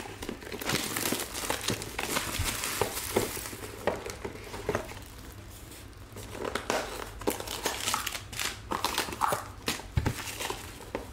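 A cardboard trading-card box being handled and opened by hand. It starts with rustling and crinkling, then a run of light taps and clicks in the second half.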